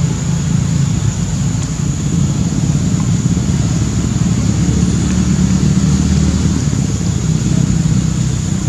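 A steady, loud low rumble with no clear beat or pitch changes.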